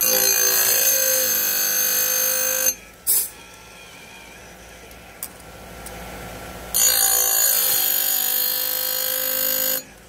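Automatic saw chain grinder's wheel grinding saw chain cutters: two passes of about three seconds each, a loud high-pitched grinding, each ending in a brief burst, with the machine running much more quietly in between.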